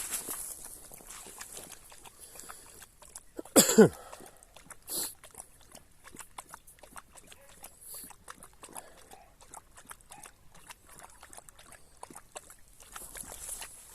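A dog barks once, loudly, about three and a half seconds in, with a shorter, fainter sound about a second later, over footsteps on wet ground.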